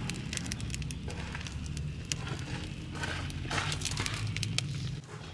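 Split firewood burning in a clay stove's firebox, crackling with many sharp pops and snaps over a steady low rumble that stops shortly before the end.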